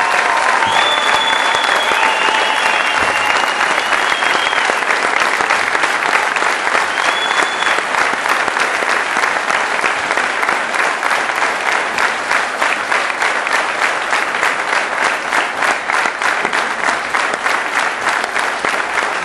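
Boxing crowd filling the gym with steady applause and cheering, with a few shrill whistles in the first few seconds. Individual claps stand out more in the second half.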